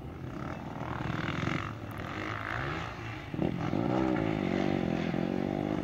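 Dirt bike engines revving on a motocross track, their pitch rising and falling. About three and a half seconds in, one bike becomes louder, with a wavering pitch as it revs up and down.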